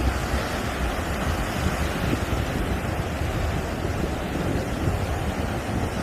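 Sea waves surging and washing on a rocky shore, with wind rumbling on the microphone.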